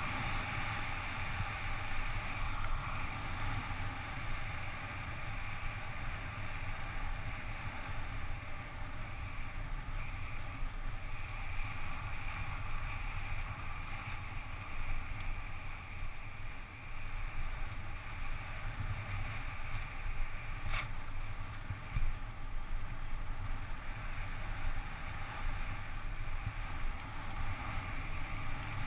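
Steady wind rush over a helmet-mounted GoPro during a fast downhill bicycle ride, with a single sharp click about three-quarters of the way through.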